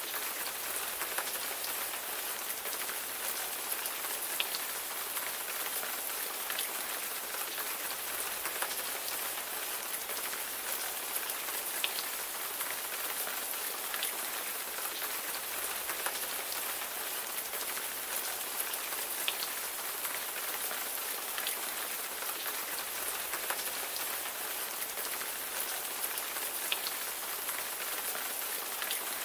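Steady rain falling on a surface: an even hiss with individual drops ticking here and there.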